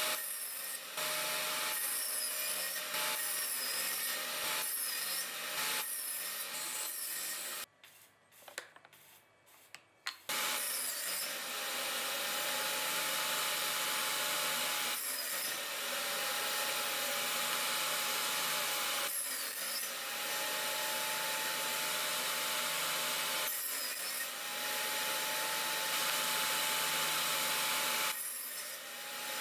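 Table saw running and cutting small wooden pieces from a pine strip pushed through on a crosscut sled. The motor's pitch dips briefly with each cut and recovers, several times over. It goes briefly near-quiet about eight seconds in.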